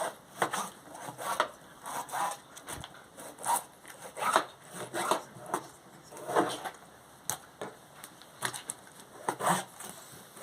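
Irregular crunching and crackling of crisp fried mojarra fish being broken apart and eaten, about two or three short crunches a second.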